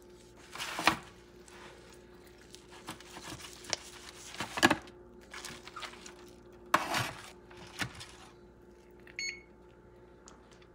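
A knife and fork carving a roast turkey in a disposable aluminium foil roasting pan: irregular short bursts of blade and tines scraping and the foil pan crinkling, with a brief squeak near the end. A faint steady hum runs underneath.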